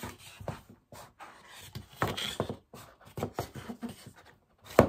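Handling noises from a Blu-ray case and its cardboard slipcover: irregular rustles and light clicks, with a sharper, louder click near the end.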